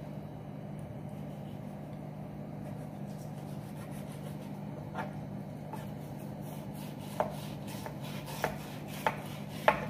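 Chef's knife working against a wooden cutting board while skinning a fish fillet, with about six short sharp knocks of the blade on the board in the second half, the loudest near the end. A steady low hum runs underneath.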